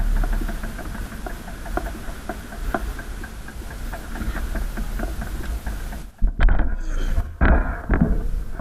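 Steady low rumble of wind and road vibration on a bicycle-mounted camera riding over paving slabs, with many small irregular rattling clicks. About six seconds in the sound drops out briefly, then comes back louder and rougher.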